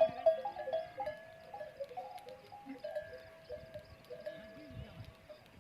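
Bells hung on camels' necks clanking at irregular moments as the animals move, several ringing notes of different pitch overlapping and fading out. The ringing is thickest at the start and thins out toward the end.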